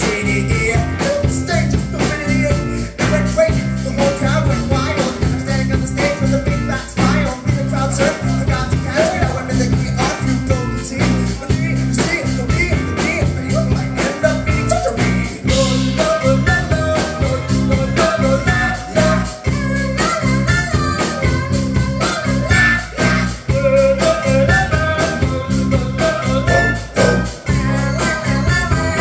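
Live rock band playing: a male lead singer over drum kit, bass guitar and acoustic guitar, with a steady, busy drum beat.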